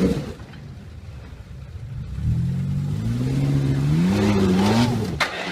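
Off-road 4x4 engine revving hard, its pitch climbing from about two seconds in and wavering before it drops off, then a brief sharp bang near the end.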